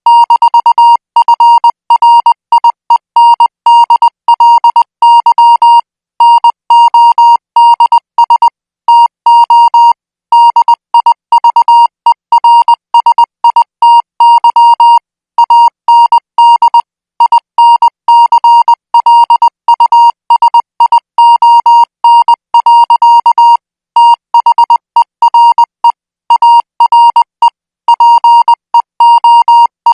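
Morse code practice signal sent at 20 words per minute: a single high-pitched beep tone keyed on and off in rapid short and long marks, with brief pauses between groups of characters.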